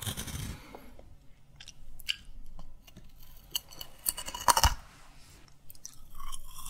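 Close-miked chewing of candy: scattered small crunches and mouth clicks, with one louder crunch about four and a half seconds in.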